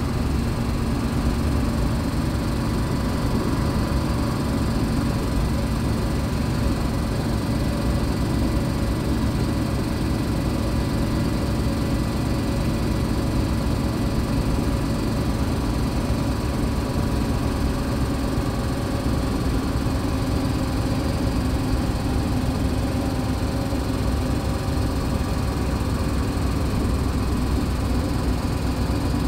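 2015 MAN Lion's City Ü (A20) bus idling at a standstill, its rear-mounted diesel engine running at a steady, even idle.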